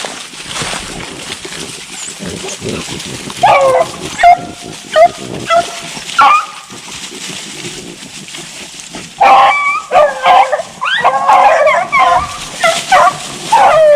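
Beagles baying and yelping on a rabbit chase, over a steady rustle. A few short, separate bawls come from about three seconds in, then several hounds give voice together, overlapping, from about nine seconds on.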